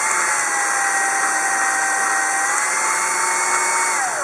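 Power drill motor running at a steady high whine as it spins an arrow nock against hand-held sandpaper, with a sanding hiss underneath. The pitch sags slightly in the middle, then the drill is released and winds down near the end.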